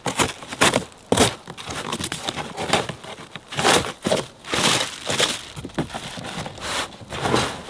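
A cardboard shipping box being cut and torn open by hand, its flaps ripping, with plastic bubble wrap crinkling as it is pulled out: a run of irregular ripping and crinkling noises.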